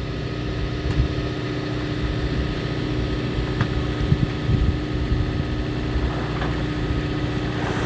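Fishing boat's engine running steadily: a constant hum over a low, uneven rumble.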